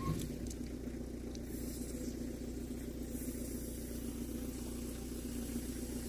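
Farm irrigation pump engine running steadily at constant speed, an even low drone.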